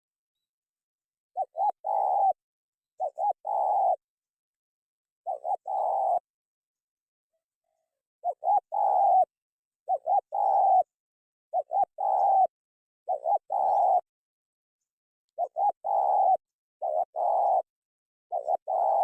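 Spotted dove (terkukur) cooing: about ten repeated phrases, each made of two short notes and a longer drawn-out coo, with a pause of about two seconds near the middle.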